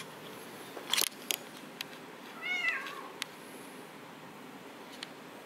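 Domestic cat giving one short trilling meow about two and a half seconds in, its pitch rising and then dropping away. Several sharp clicks come before it, the loudest about a second in.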